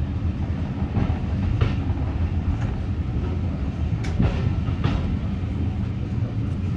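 Passenger carriage of a steam-hauled heritage train rolling slowly along the platform, a steady low rumble with a few irregular clicks of the wheels over rail joints, heard from an open carriage window.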